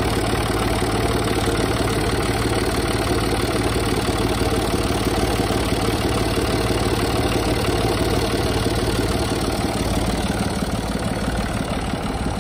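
Kubota M1-55 tractor's three-cylinder diesel engine idling steadily, heard up close beside the engine block.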